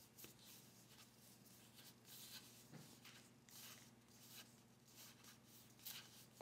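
Near silence with faint, scattered rustles and crinkles of a roll of wide washi/PET sticker tape being handled and unrolled, over a steady low hum.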